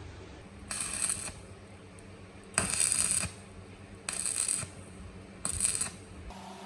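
Four short hissing bursts of spray, each lasting about half a second, with the second the loudest and longest.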